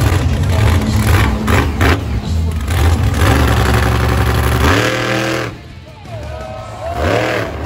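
Monster truck engine running loud and low, revving up with a rising pitch about three to four seconds in. The sound drops off sharply about five and a half seconds in, followed by quieter, short rising-and-falling revs.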